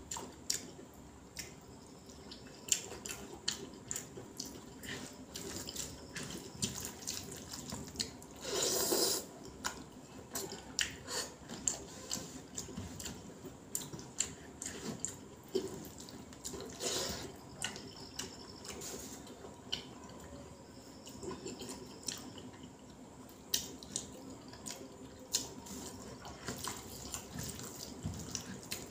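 A person eating rice with sambar and egg by hand: wet squishing as the fingers mix rice and curry on a banana leaf, and wet chewing, with many short clicks and two louder, longer wet noises about nine and seventeen seconds in.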